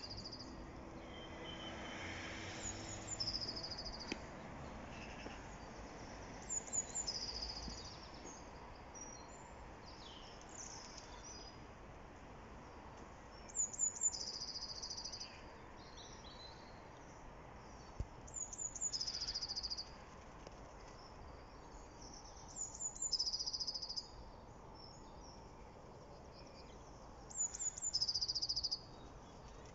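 A songbird repeating the same short song phrase roughly every four to five seconds, six or seven times: a couple of very high notes followed by a longer whistled note that falls slightly. Behind it is a faint steady hum of distant background noise.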